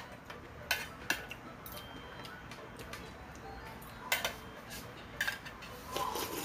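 Metal chopsticks clicking against a plate, a few separate sharp taps, with eating sounds near the end.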